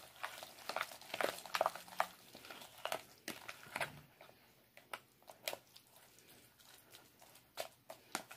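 Avocados being mashed into guacamole in a plastic bowl: quiet, irregular squishing clicks and taps. They come thick in the first half and thin out later.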